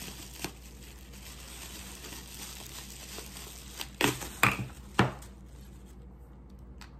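Plastic bubble wrap crinkling as it is handled and peeled off a small bottle, with three sharp, louder crackles about four to five seconds in.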